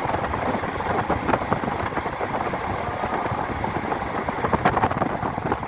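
Steady noise of a vehicle on the move: engine, road and wind noise with a rough crackle.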